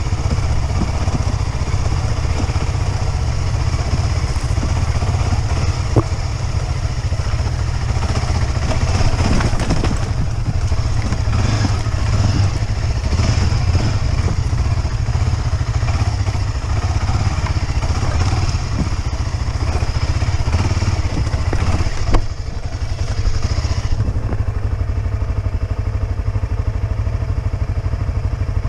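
Motorcycle engine running steadily under way, with a sharp knock about six seconds in and another about twenty-two seconds in. A couple of seconds after the second knock the higher hiss drops away.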